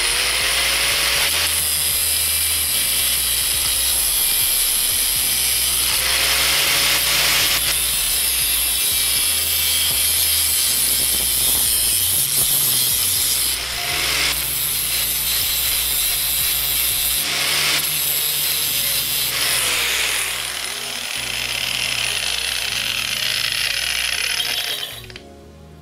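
Angle grinder cutting off the protruding tips of bolts: a loud, harsh, high-pitched grinding that starts abruptly, eases off briefly a few times as the disc comes off the work, and stops abruptly near the end.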